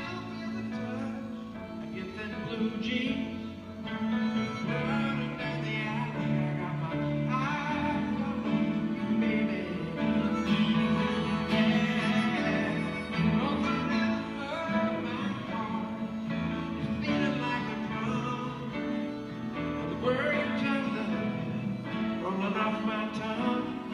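Live harmonica solo, a melody with notes that bend in pitch, played over an acoustic guitar and piano accompaniment.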